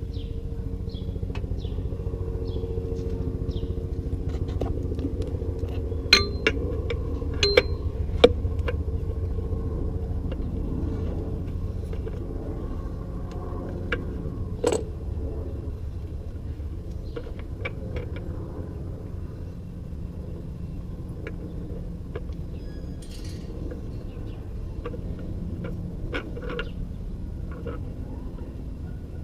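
Several sharp metallic clinks, a few between about six and eight seconds in and one more near fifteen seconds, over a steady low rumble, with faint bird chirps.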